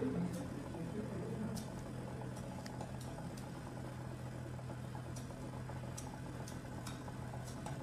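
Steady low background hum, with a few faint scattered ticks.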